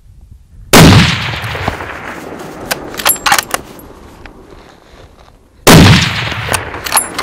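Two hunting-rifle shots about five seconds apart, each very loud and followed by a long echo fading across the mountainside. A few sharp metallic clicks come between them.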